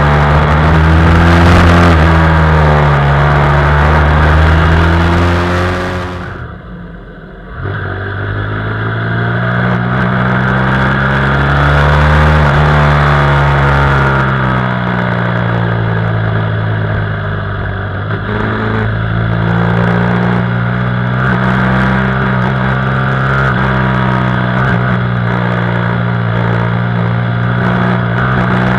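BMW F800R's parallel-twin engine heard from an onboard camera while riding, its revs rising and falling through the bends, with wind rush. About six seconds in the engine sound drops away for a second or so, then picks up again.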